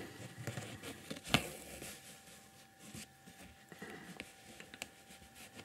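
Faint rustling and light ticks of a needle and thread being worked through needlelace, with the thread drawn across the work; one sharper tick about a second and a half in.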